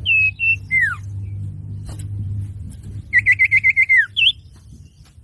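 Common iora (cipoh) song: two clear steady whistled notes and a falling whistle, then about three seconds in a fast run of about seven chirps that ends in a downward slur and a short rising note, over a low steady hum.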